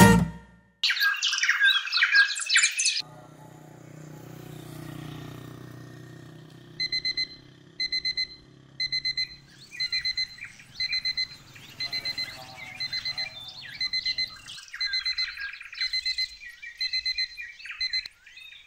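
A phone alarm beeping in quick groups of short beeps, about once a second, with birds chirping among the beeps; the beeping stops shortly before the end. A brief loud burst of high chirping comes about a second in.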